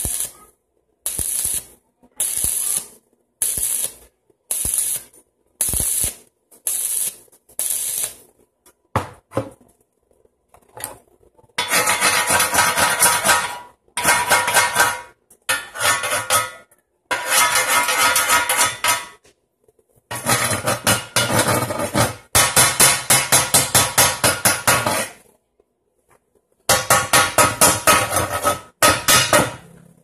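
Stick (arc) welding on a steel frame: the arc crackles and sizzles in bursts, first about nine short tack welds under a second each, then from about 11 s longer welds of one to three seconds each.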